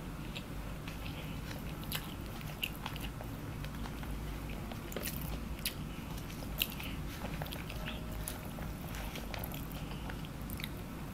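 Close-miked chewing and biting of a mouthful of nasi lemak with sambal and fried anchovies: wet chewing with small crunches and scattered short mouth clicks.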